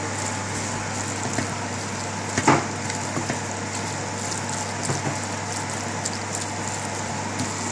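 Wooden spatula stirring minced meat and onions in a frying pan, with scattered knocks and scrapes against the pan, the loudest about two and a half seconds in, over a steady hiss and low hum.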